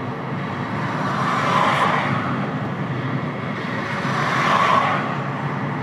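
Steady road and engine noise heard from inside a Renault car's cabin while it drives at speed, swelling slightly twice.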